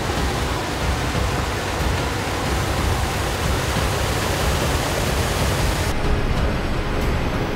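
Swamp buggy driving through shallow marsh water: its big tyre churns and splashes steadily over the low rumble of the engine.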